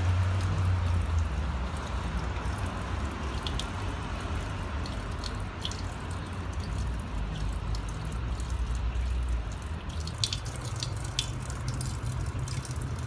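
Thin stream of water running from a mosque ablution-fountain tap, splashing steadily onto the stone basin, with light dripping clicks from about ten seconds in.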